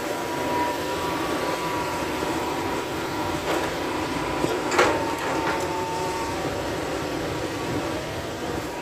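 Hydraulic excavator's diesel engine running under load with a thin, steady hydraulic whine as it swings and loads a dump truck with earth. A single sharp knock comes about five seconds in.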